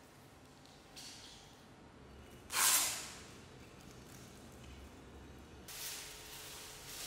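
Packing materials handled while artworks are unwrapped: a short rustle about a second in, a sudden loud rasp from the plastic wrapping about two and a half seconds in, then paper wrapping rustling near the end.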